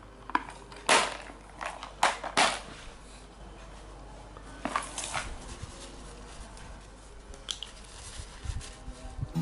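Sharp plastic clicks and knocks as a clear plastic lure box's lid is snapped shut and the box set down, the loudest about one, two and two and a half seconds in. Fainter handling and tissue rustling follow as a spinning reel is wiped.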